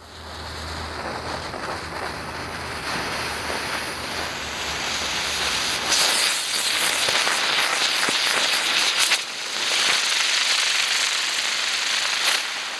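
Friendship Pagoda ground firework hissing as it sprays sparks. It gets louder and harsher about six seconds in as the spark fountain flares up.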